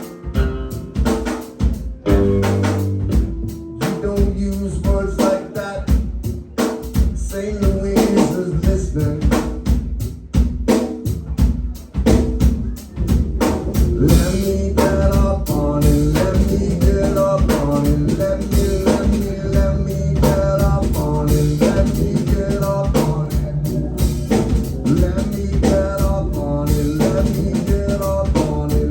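Live band playing an instrumental stretch of a song, the drum kit to the fore with rimshots, snare and bass drum over bass and other instruments. About halfway through, the other instruments fill in and hold more steadily under the drums.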